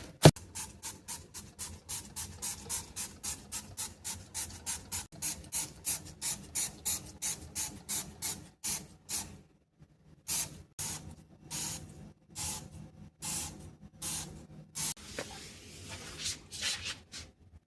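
Rhythmic rubbing strokes of hand scrubbing on a surface, about three a second. They break off briefly about nine seconds in, then go on more slowly.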